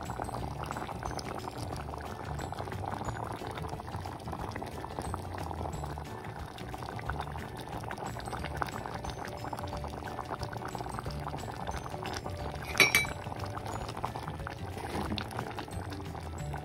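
Thick curry bubbling at a steady boil in a metal pot, a continuous crackle of small bursting bubbles, with one sharp clink late on.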